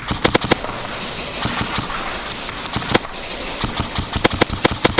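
Airsoft guns firing: three quick sharp shots at the start, a single shot about three seconds in, then a rapid string of about five shots near the end, over a steady hiss.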